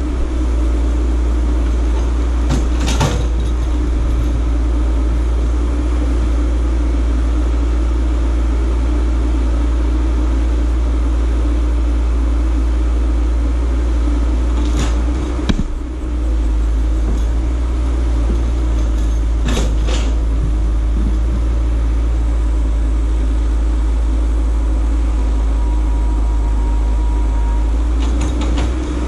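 Caterpillar tracked excavator's diesel engine running steadily while it works, with a few short sharp knocks from the rock work: about three seconds in, around fifteen seconds in and around twenty seconds in.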